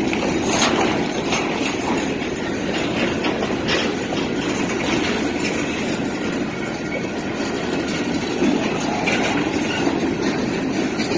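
Reading and Northern freight train's open-top hopper cars rolling past close by: a steady rumble and clatter of steel wheels on the rails, with a couple of sharp clanks.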